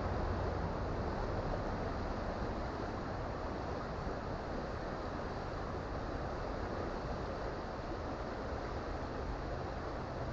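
Creek water running steadily, an even rushing noise with a low rumble underneath.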